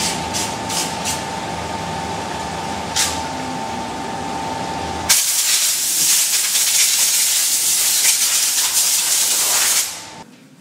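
A steady hum with a fixed high tone and a few sharp clicks, then compressed air hissing loudly from a hose nozzle for about five seconds, cutting off abruptly near the end.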